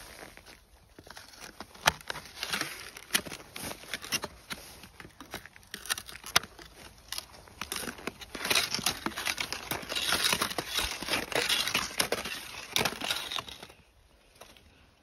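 Crisp snow crunching and crackling in irregular bursts, louder and busier in the second half, then dying away near the end.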